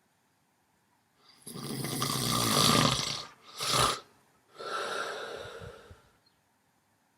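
Snoring during sleep. A long snore starts a little after a second in, then comes a brief loud snort, then a quieter snore that fades out about six seconds in.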